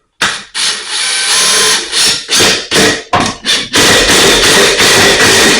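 Power drill driving screws through the side of an electrical box into a wooden stud. It runs in short stop-start bursts, then in a longer steady run over the last couple of seconds.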